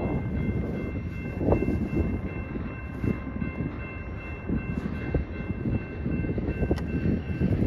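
Loaded flatcars of a freight train rolling slowly past in reverse: a steady low rumble of wheels on rail, broken by a handful of irregular knocks, with a faint steady high whine over it.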